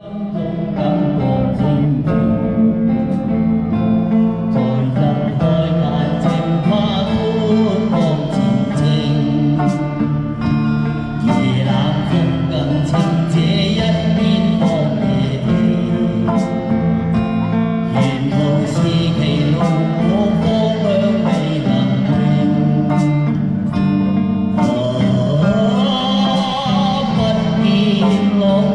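Music: a song with a singing voice over instrumental backing, at a steady level throughout.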